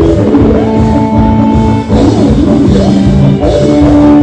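Live band playing loud amplified dance music: a keyboard melody with sliding notes over a steady drum beat and bass.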